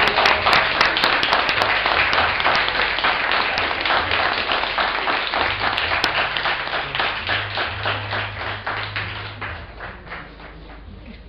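A small group of people applauding, loud at first and gradually dying away over the last few seconds.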